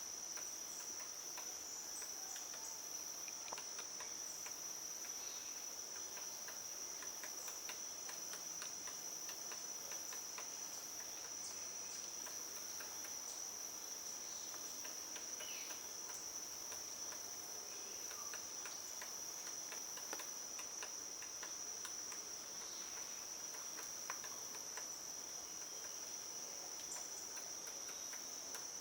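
Steady, high-pitched drone of insects, unbroken throughout, with faint scattered short chirps and ticks beneath it.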